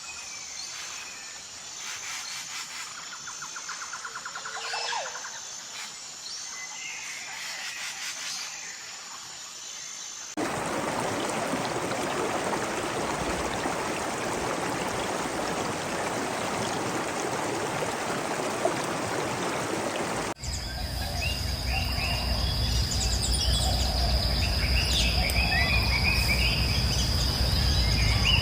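Rainforest ambience in three abruptly cut sections. First, scattered bird calls over a steady, high insect drone. About ten seconds in, an even rushing noise takes over for about ten seconds, then gives way to a busy chorus of bird calls over a steady, high insect whine.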